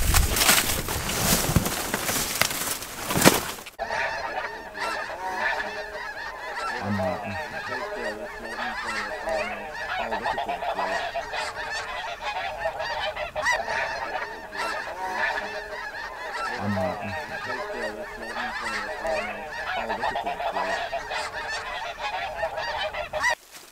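For the first few seconds, loud rustling and wind noise from footsteps through dry crop stubble. Then a large flock of snow geese calls overhead in a constant dense clamour of many overlapping honks, cutting off abruptly near the end.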